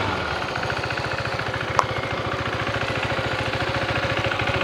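KTM Duke 390's single-cylinder engine idling with an even, rapid putter, settling down from a throttle blip at the start and slowly getting a little louder. A single short click about two seconds in.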